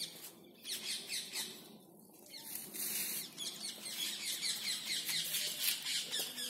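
Many birds calling together in a dense chorus of short, high, falling calls repeated rapidly, growing busier about halfway through.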